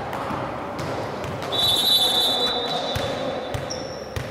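Referee's whistle in a volleyball match: one steady, shrill blast of about two seconds, starting about a second and a half in, followed near the end by a shorter, higher tone. Voices murmur and a ball thumps underneath.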